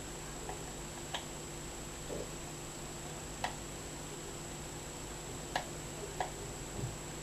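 Small sharp clicks from a thin hook pick and tension wrench working the pin tumblers of a small Corbin padlock: four distinct clicks a second or two apart, with a few fainter ticks between, over a faint steady hum.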